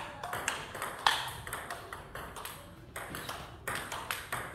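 Table tennis ball clicking off the players' bats and bouncing on a Donic table in a rally, several sharp pings a second, thinning out about two seconds in before a few more clicks near the end.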